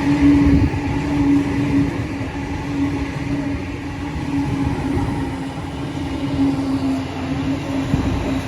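Electric suburban train running through the station: a steady hum with a low rumble underneath.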